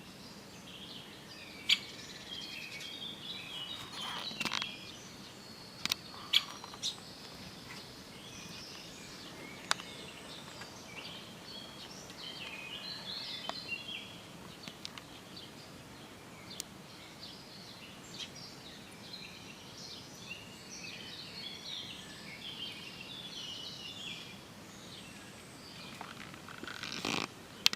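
Young great spotted woodpecker giving repeated high, chattering calls, with a few sharp knocks scattered through.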